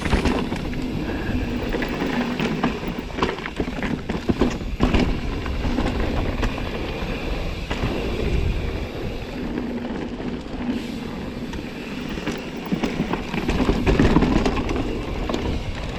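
Mountain bike riding a dirt singletrack: tyres rolling over dirt and roots while the chain and frame rattle, with scattered sharp knocks from bumps.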